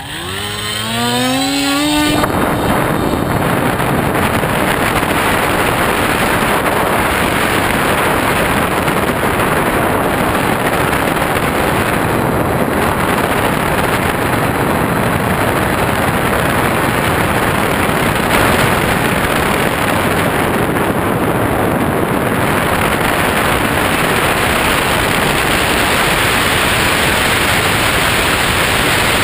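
Electric motor and propeller of a Skywalker FPV plane spooling up, a whine rising steeply in pitch over the first two seconds. Then a loud, steady rush of wind and propeller noise on the onboard GoPro in flight.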